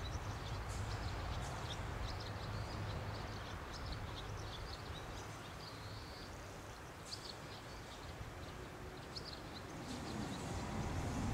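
Outdoor ambience: small birds chirping now and then over a steady low rumble, with a faint low hum growing near the end.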